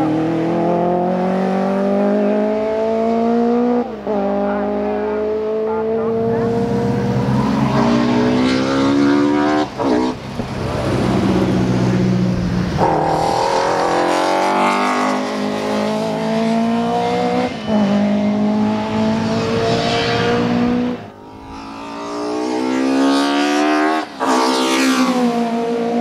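BMW M3 E30 ex-DTM race car's four-cylinder engine accelerating hard on track. Its pitch climbs and drops back at each upshift, several times over.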